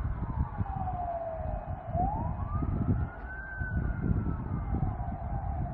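Emergency vehicle siren wailing: its pitch falls, rises again about two seconds in, then falls once more, over a low, uneven rumble.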